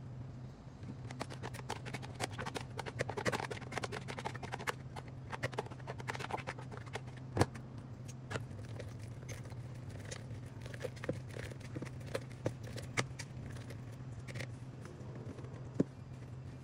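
A silicone spatula and a metal spoon scraping and clicking against a plastic mixing bowl as a spinach mixture is stirred into egg yolks and cheese, then egg whites are folded in. Irregular scrapes and taps run throughout, with a sharper knock about halfway and another near the end, over a steady low hum.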